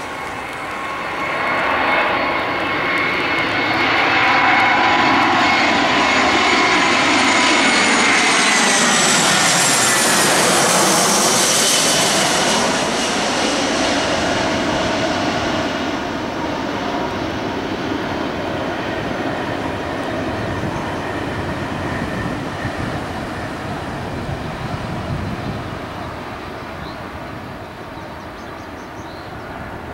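Airbus A319 jet engines on final approach, growing louder as the airliner comes in overhead. Their whine glides down in pitch as it passes, and the engine noise then fades slowly as it flies on toward the runway.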